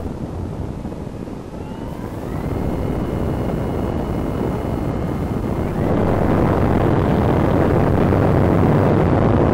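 Airflow rushing over an FPV camera's microphone on a Multiplex Cularis electric motor glider in flight. About two seconds in, a thin whine, typical of the electric motor and propeller, rises in pitch and then holds steady. Near the six-second mark the whine drops away under a louder, fuller rush of wind.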